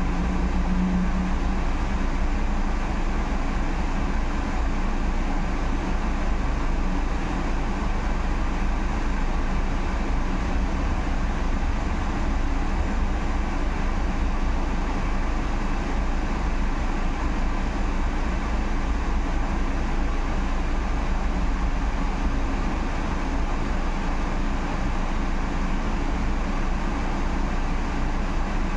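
Steady running noise heard inside a Solaris Urbino 18 IV electric articulated bus on the move: a continuous deep road and tyre rumble with faint steady tones over it.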